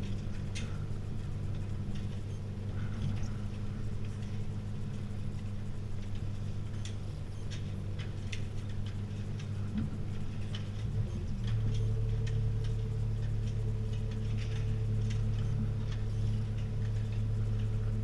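Elan 450 sailboat's inboard diesel engine running steadily during a docking manoeuvre, its hum growing louder with a change in note about eleven seconds in. Scattered light clicks and ticks sound over it.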